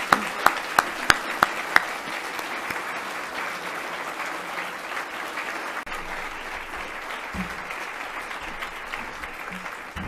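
Audience applauding steadily, with a quick run of loud, close claps, about three a second, in the first two seconds.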